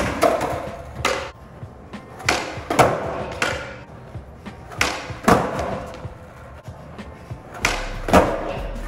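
Skateboard popping and landing on concrete again and again during laserflip (360 heelflip) attempts. Each sharp snap of the tail is followed about half a second later by the clack of the board and wheels hitting the ground, three times over, with a few single clacks near the start.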